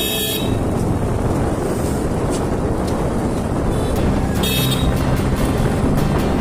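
Motorcycle riding along a village street, with steady engine and wind rumble. A horn honks briefly twice, once right at the start and again about four and a half seconds in.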